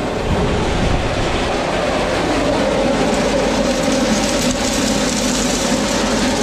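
Electric tailgate salt spreader running as it unloads, its drive rattling steadily while rock salt feeds out of the chute.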